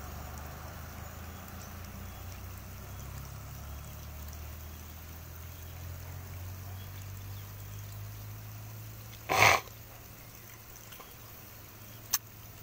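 A low steady rumble that fades about nine seconds in, broken by a short loud burst of noise about nine and a half seconds in, and a single sharp click near the end.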